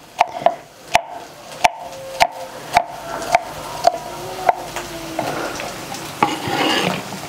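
Knife chopping deer-horn coral mushrooms on a wooden cutting board, sharp knocks about two a second. In the last couple of seconds a sizzle rises: onion, garlic and chile frying in oil in a pan.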